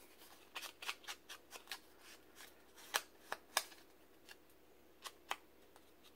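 Faint light taps and paper rustles as small cardstock pieces are handled and their edges dabbed with a wooden-handled ink blending tool. There is a scatter of soft taps early on, the three loudest close together about three seconds in, and two more a little after five seconds.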